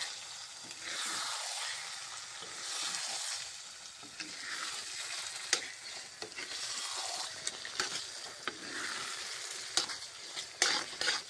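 Lauki (bottle gourd) in thick masala sizzling and frying in an iron kadhai while a spatula stirs it, with irregular sharp scrapes and knocks of the spatula against the pan.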